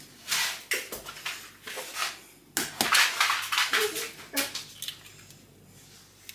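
Eggs being cracked on the edge of a mixing bowl and pulled open: a run of short cracking and crunching noises, loudest about three seconds in.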